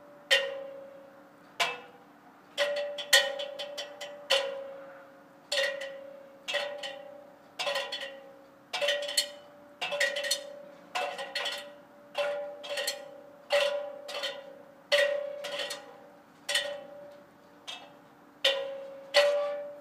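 A child drumming on a metal stepladder with twigs: irregular strikes, one or two a second, each leaving a short metallic ring that fades before the next.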